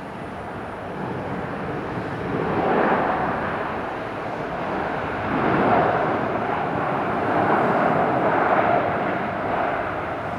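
Jet airliner engines of an ANA Boeing 787-8 sounding as it passes, a broad rushing noise with no clear tone. It grows louder from about a second in and swells twice before holding near its peak.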